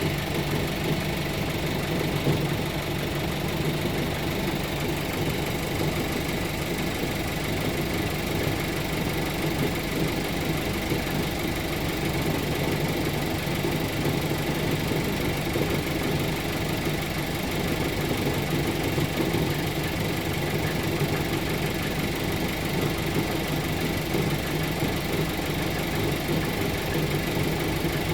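Audi A4 B9 idling steadily, with a low rattle that the owner cannot place and hears toward the passenger side.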